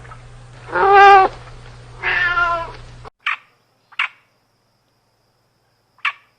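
Domestic cat meowing twice, with a low steady hum behind the meows that cuts off about three seconds in, followed by three short clicks.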